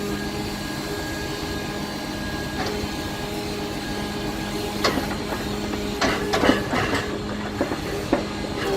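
Logging truck's engine running steadily while logs are unloaded, with sharp knocks and clunks of logs now and then and a quick cluster of them about six seconds in.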